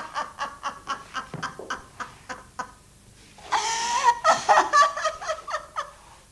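An elderly woman laughing hysterically in rapid high cackles, about six a second, breaking into a long high cry about three and a half seconds in, then cackling again and trailing off.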